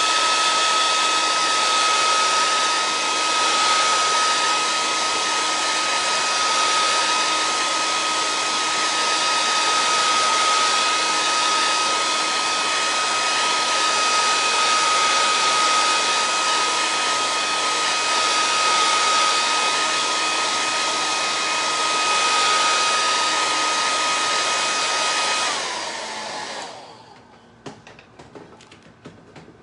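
Handheld blow dryer running steadily, a whine over its rushing air, as it dries chalk paste on a wooden cutout. About 26 seconds in it is switched off and the whine falls as it winds down.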